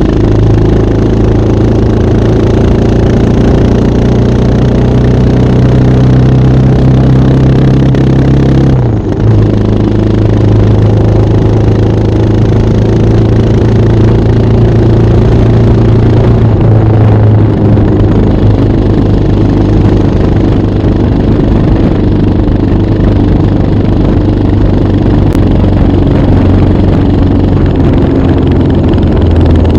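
Motorcycle engine running through a Yoshimura Trioval exhaust, held at steady revs. About nine seconds in the sound briefly breaks and the engine note then settles slightly lower.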